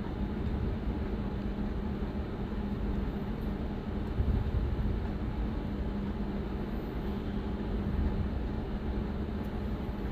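Steady low background hum with a faint constant tone, like a running fan or air conditioner.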